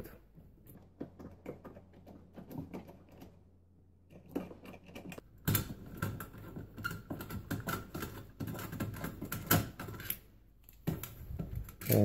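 Screwdriver working the screws of a dishwasher's metal junction-box cover loose: a run of small clicks, ticks and scrapes, sparse at first and busier from about four seconds in, with a few sharper knocks of metal.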